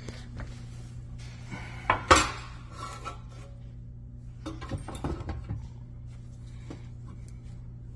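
Metal tape measure clinking and clicking against ceramic tile as the tiles are measured: two sharp knocks about two seconds in, the loudest sounds, then a quick cluster of lighter clicks around the middle, over a steady low hum.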